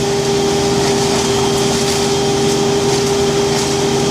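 A machine engine running steadily at constant speed, with a strong unchanging hum.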